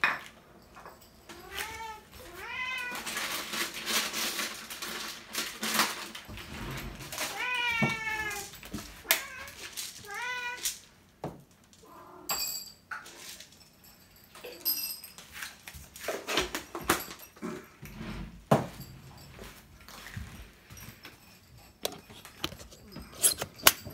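Cats meowing for food, several calls in the first ten seconds or so. After that come scattered clicks and rattles as dry cat kibble is poured from a plastic container onto small dishes and the cats begin eating.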